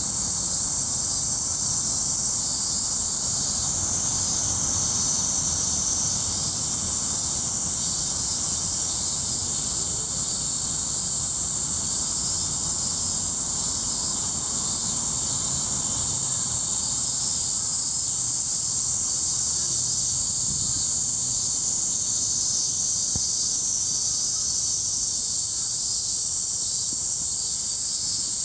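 Steady, high-pitched drone of cicadas singing in chorus, unbroken and even in level throughout.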